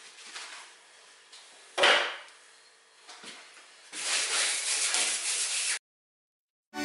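Guide-coat applicator pad rubbed over a filler-coated steel body panel: a sharp scuff about two seconds in, then a steady dry rubbing for nearly two seconds that cuts off suddenly.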